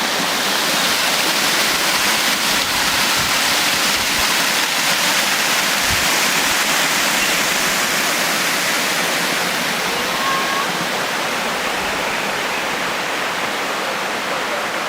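Steady, loud rushing of falling water, with a brief faint whistle about ten seconds in.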